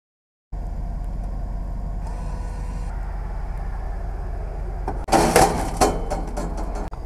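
Bagged-ice vending machine running with a steady low hum. About five seconds in, a bag of ice drops down the delivery chute with a loud clattering thud and several rattling knocks.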